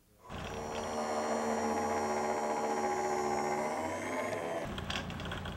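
Electric stair-climbing hand truck's drive motor running with a steady whine. Near the end the sound changes and a few knocks come in.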